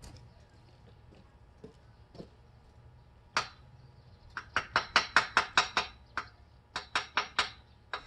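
Hammer striking metal: a single blow, then a fast run of about a dozen quick blows, then a short burst of five more.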